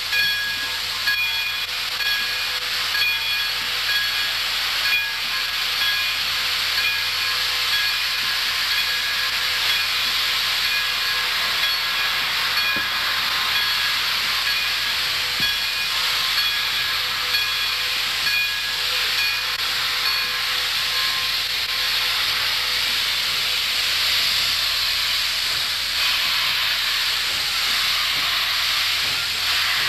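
Pere Marquette 1225, a 2-8-4 Berkshire steam locomotive, moving off slowly with its cylinder cocks open: a steady loud hiss of blowing steam. A thin, high whistling tone runs through the hiss and fades out after about twenty seconds.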